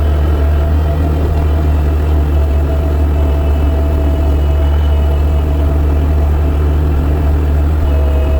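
The engine of a 60-horsepower snow-pushing tractor running steadily, a deep, even drone with faint steady tones above it.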